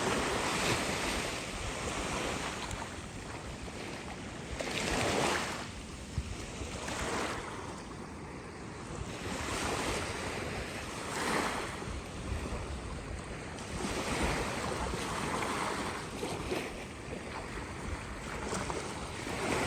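Sea waves washing in and out, swelling and fading every few seconds, with wind buffeting the microphone.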